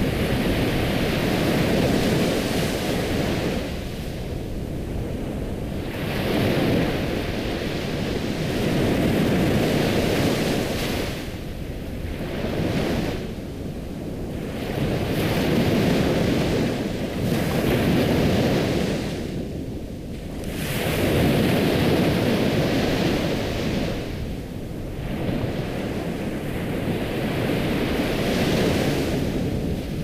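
Ocean surf: waves washing in and drawing back, a steady rushing that swells and fades every few seconds.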